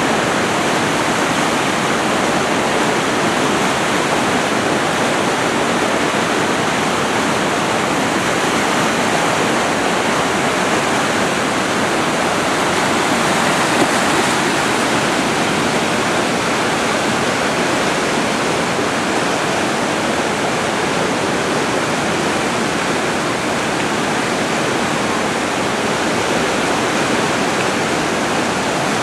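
Whitewater rapids rushing steadily through an artificial slalom kayak channel.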